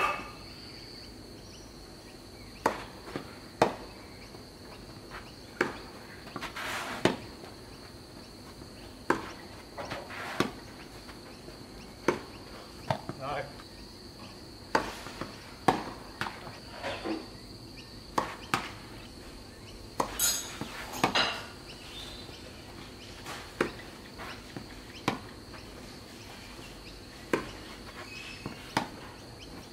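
Tennis rallies: a ball struck back and forth by rackets and bouncing on the court, sharp pops every second or so, with short pauses between points. Under them runs a steady high insect drone.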